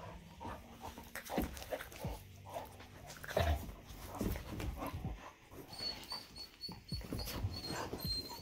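Two young puppies play-fighting close to the microphone: scuffling and handling knocks, with short, irregular puppy vocal sounds scattered through.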